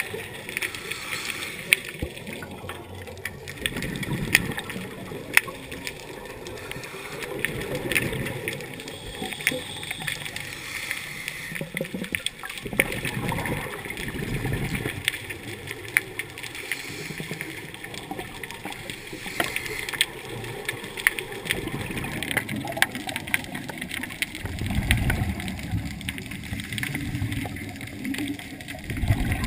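Scuba divers' exhaled bubbles from their regulators bubbling and gurgling, recorded underwater, with many scattered clicks and louder bubbling swells every few seconds.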